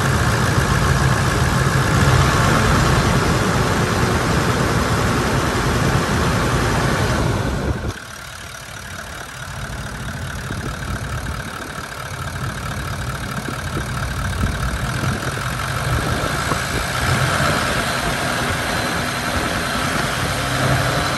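Toyota LandCruiser 70-series ute's 4.5-litre 1VD-FTV V8 turbo diesel idling steadily. About eight seconds in, the sound drops abruptly, then slowly grows louder again.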